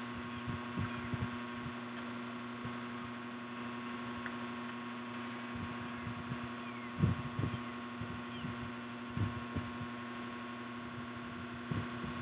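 Steady hum with a few soft low thumps from chewing and handling french fries: a couple about a second in, a cluster around seven seconds, more around nine seconds and one near the end.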